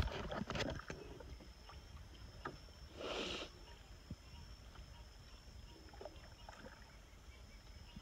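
Knocks and clunks of a small boat moving along the marsh edge, loudest in the first second, then a short rushing splash of water about three seconds in, with a steady thin high-pitched tone underneath.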